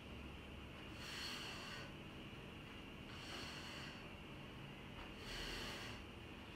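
A woman's hard breathing under exertion: three loud breaths about two seconds apart, one with each lift of the hips.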